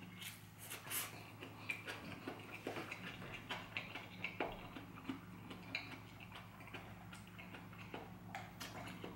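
Faint wet clicks and smacks of a person chewing a mouthful of fried instant noodles and tomato, irregular and scattered, over a steady low hum.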